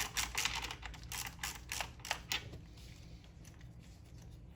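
Quarter-inch drive ratchet clicking rapidly as it backs out a fuel-rail fastener, stopping about two and a half seconds in, with only faint ticks after.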